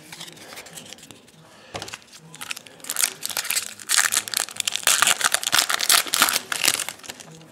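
Foil wrapper of a Bowman Platinum trading-card pack being torn open and crinkled by hand: a dense, crackling rustle starting about two and a half seconds in and lasting some four seconds.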